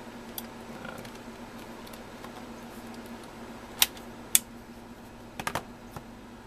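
Plastic clicks from a Dell Inspiron 1420 laptop's battery being unlatched and pulled out of its bay: two sharp clicks about half a second apart just past the middle, then a quick run of three clicks about a second later.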